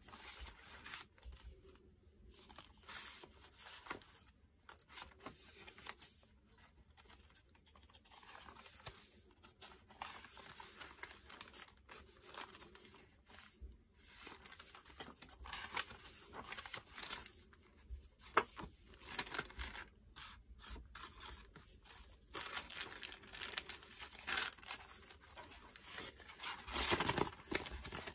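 Coffee-dyed paper pages of a handmade journal rustling and crinkling as they are turned and handled, in short irregular rustles; a fast run of pages being flipped near the end is the loudest.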